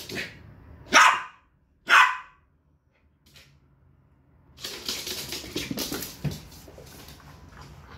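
West Highland white terrier barking three times about a second apart, the last two barks loud and sharp. A few seconds later comes a stretch of scuffling and clattering.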